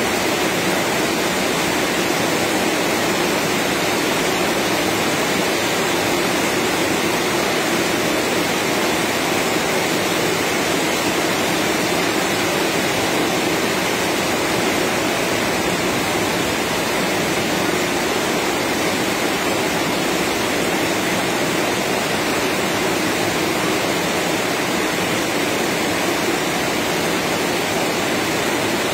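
Steady, even rush of falling rain.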